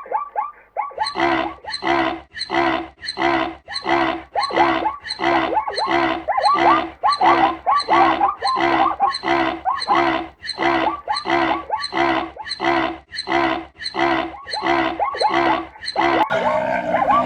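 Zebra calling: a long, even run of barking calls, about two a second, with a different call taking over near the end.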